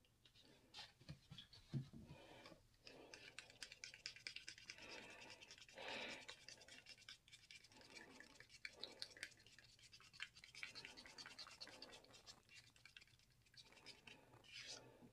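Faint irregular scraping and clicking of a plastic mixing spoon stirring thick black acrylic paint with added water in a small plastic cup, thinning it to a runny pouring consistency.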